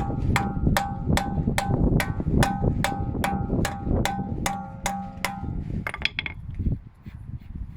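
Hammer tapping steadily on an old nut threaded onto the end of a BMW drive shaft to drive the shaft out of the wheel hub, about a dozen sharp metallic strikes at roughly two and a half a second, each ringing briefly. The run stops about five seconds in, with a couple more taps about a second later.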